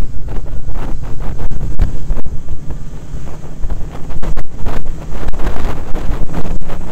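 Heavy wind buffeting on the microphone of a camera on a motorcycle at road speed, gusting unevenly, with the engine's steady drone underneath.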